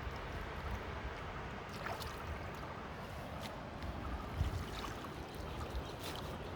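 Water trickling and lightly splashing, with a few faint short splashes or knocks, over a steady low rumble.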